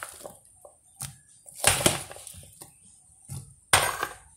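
Silicone spatula stirring chopped fruit and cream in a glass bowl: a few wet scraping strokes, the loudest about two seconds in and near the end.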